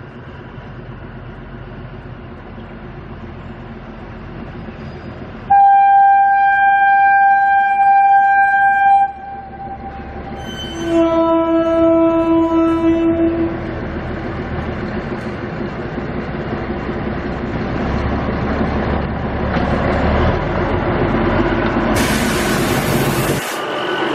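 Narrow-gauge diesel locomotive approaching on the line, its engine and wheels growing louder. About five seconds in it sounds its horn in one long high blast, then a second, lower-pitched blast a couple of seconds later. The engine and wheel noise then rises to a loud rush as the locomotive draws alongside near the end.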